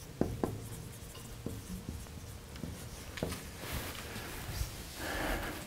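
Dry-erase marker writing on a whiteboard: faint taps and short strokes over the first three seconds, then a soft rubbing rustle near the end.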